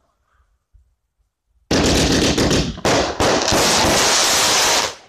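Firework going off: a loud, dense crackling hiss that starts about one and a half seconds in, runs about three seconds with two brief breaks, and cuts off suddenly.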